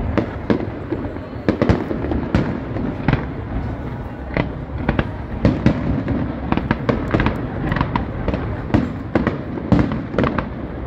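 Aerial fireworks bursting overhead: many sharp bangs and pops in quick, irregular succession over a steady low rumble.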